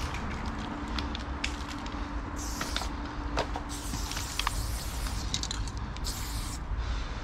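Loop Colors aerosol spray paint can spraying in hissing bursts: a short one about two and a half seconds in, a long one lasting over two seconds, then another short one. A low, steady rumble runs underneath.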